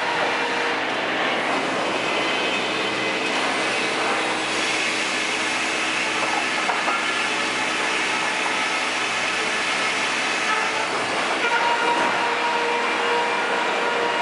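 Sawmill machinery running steadily: a loud continuous mechanical noise with a held whine, which eases in the middle and comes back clearer near the end.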